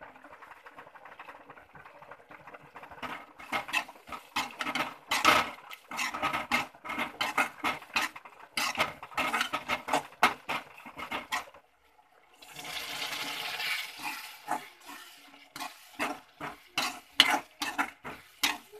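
Slotted metal spatula stirring fried onions and chilli powder in a metal kadai, scraping and clinking rapidly against the pan. After a short break partway through there are about two seconds of steady hissing, and then the scraping and clinking start again.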